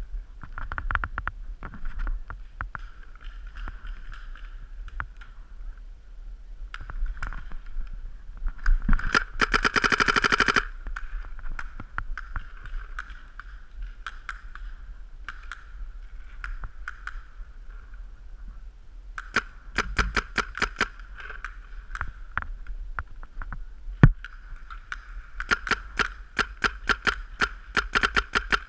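Paintball markers firing in rapid strings of sharp pops: a fast dense burst about nine seconds in, another string around twenty seconds in, and near-continuous rapid fire in the last few seconds. A single louder crack stands out around twenty-four seconds in.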